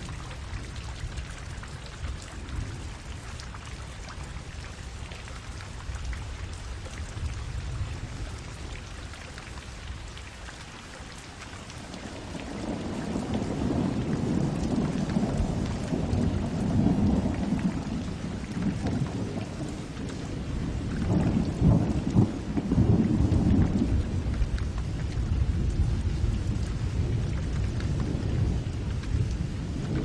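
Steady rain falling, with a long low rumble of thunder building about a third of the way in, swelling twice and then rolling on more softly.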